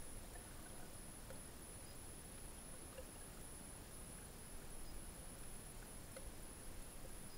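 Faint underwater ambience picked up by a submerged camera: an even hiss with a thin, steady high whine and a few tiny scattered ticks.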